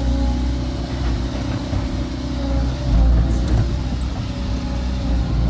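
CAT excavator's diesel engine running steadily at working revs, with a faint wavering hydraulic whine over the low rumble as the machine digs and moves.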